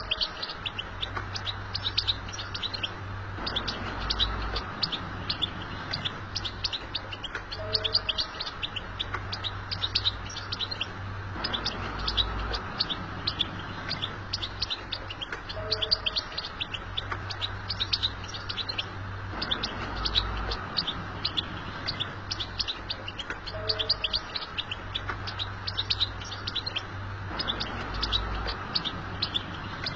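European goldfinch twittering: a fast, unbroken run of high chirps and trills. The pattern repeats about every eight seconds, over a faint steady low hum.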